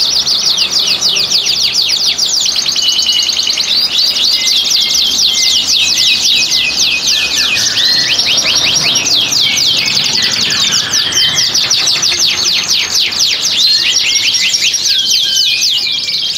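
Domestic canary singing without a break in its breeding-condition song: fast rolling trills of quick falling notes, many to the second, high-pitched.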